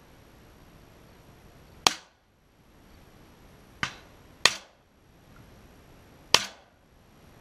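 Four shotgun shots fired at doves in flight, the second one fainter than the rest, each with a short decaying report.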